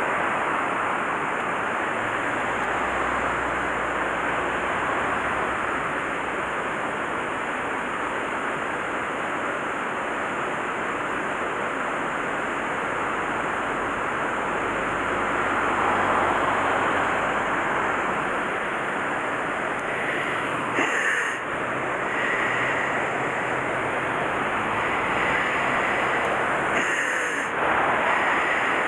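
Steady rush of water spilling through a concrete weir into a small channel, with two brief sharper noises about two-thirds of the way through and again near the end.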